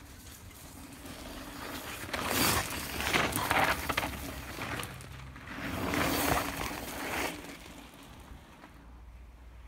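Mountain bike tyres rolling and skidding over a loose dirt trail as the rider goes by close, twice, each pass a rush of crunching that swells and fades.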